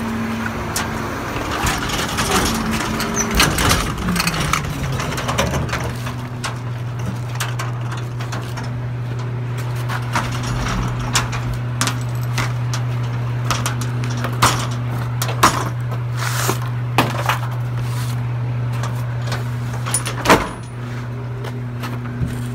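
Mack garbage truck's diesel engine dropping from a raised speed to a steady idle about four seconds in, then idling. Scattered sharp knocks and clanks sound over it, the loudest about twenty seconds in.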